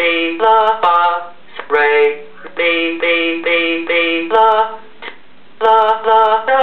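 Yellofier app playing back a sequenced melody of recorded sung solfege syllables (do, re, mi…). The short, clipped sung notes follow one another at a quick tempo, with two brief pauses.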